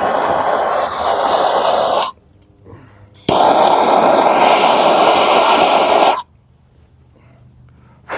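Handheld propane torch flame hissing against wood in two blasts of about two and three seconds, each starting with a sharp click, scorching the surface of a carving to darken it.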